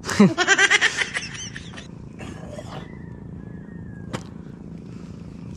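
A person's voice in a short vocal burst of quickly repeating pulses lasting about a second and a half, then a low steady background with a few faint clicks.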